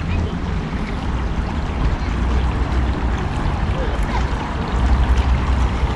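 Water running steadily in a small shallow stream.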